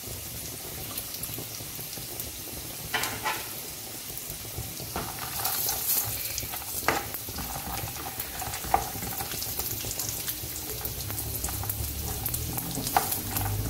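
Peanuts, cashews and almonds frying in hot oil in a frying pan: a steady sizzle, broken by scattered clicks and scrapes of a spatula stirring them.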